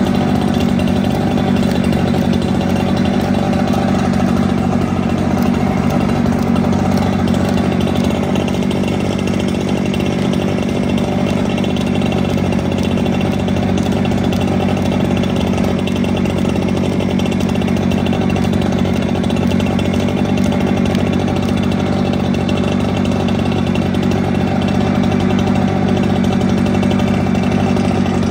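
Gas-powered leaf blower's small two-stroke engine running steadily at constant high throttle, a loud unchanging drone with no let-up.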